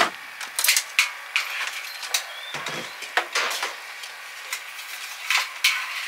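Irregular clicks, knocks and rustles from handling a small submersible aquarium pump and its plastic tubing while connecting them. The loudest knocks come around one second in and near the end.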